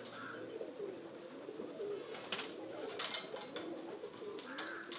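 Many pigeons cooing at once, their calls overlapping in a continuous chorus, with a few short sharp clicks.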